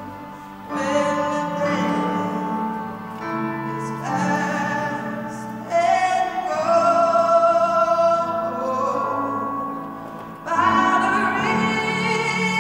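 A woman singing into a microphone in long held notes, in three phrases that swell in about a second in, near the middle and near the end.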